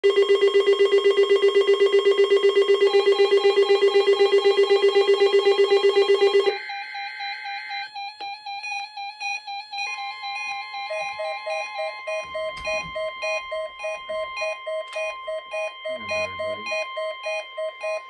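Several NOAA weather radios sounding their alert beeps for a Required Weekly Test. A loud, rapidly pulsing low beep comes first and stops about six and a half seconds in, leaving several overlapping beep patterns at different pitches from the other receivers, some pulsing and some steady.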